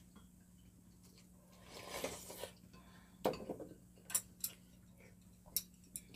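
Metal spoon and chopsticks clinking against ceramic bowls while eating: a dull knock about three seconds in, then four sharp clinks in two pairs. A short soft noise comes about two seconds in.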